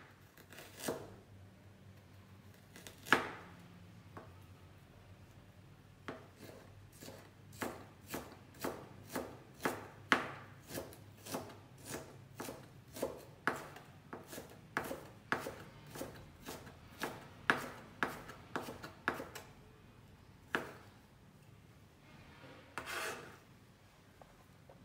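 Kitchen knife cutting ginger on a plastic cutting board: a few separate cuts, then a steady run of about two chops a second as the slices are cut into thin strips. Near the end comes a short scrape as the knife sweeps the strips off the board.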